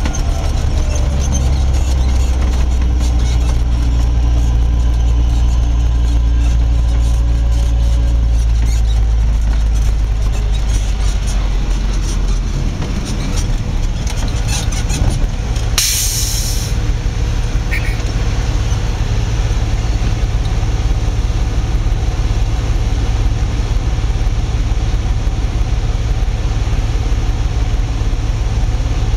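Diesel engines of harvest machinery running steadily. A deep even hum through the first part, heard from inside a vehicle cab, gives way to a rougher rumble about twelve seconds in. A short hiss comes about halfway through.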